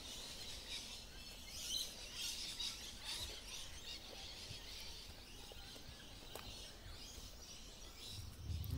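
Birds chirping faintly and repeatedly over a low, steady outdoor background noise.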